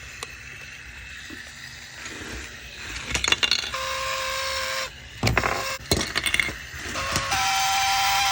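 Small electric LEGO toy motors whining as they run in stops and starts: a steady whine for about a second some four seconds in, then a higher one from about seven seconds in. Plastic bricks clatter and knock around the middle.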